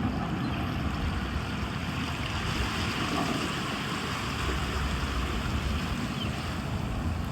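Wind buffeting the microphone, over a steady outdoor rushing noise.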